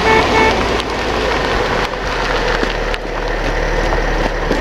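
A car horn toots twice in quick succession, then the car runs with a steady low rumble and road noise.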